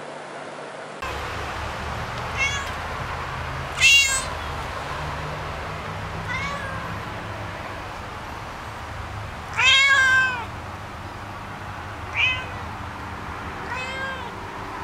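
Cat meowing six times, a second or two apart, over a steady low hum; the second meow is short and loud, and the fourth is the loudest and drawn out to about a second.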